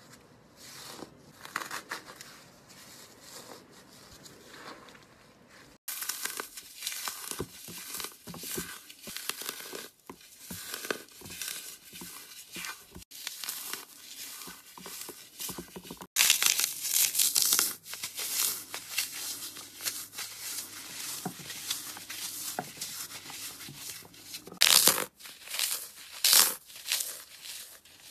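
Hands squeezing and crumbling blocks of oven-baked floral foam: a dense, dry crackling crunch of many fine snaps as the foam breaks apart. It comes in several separate takes that change abruptly, the later ones louder.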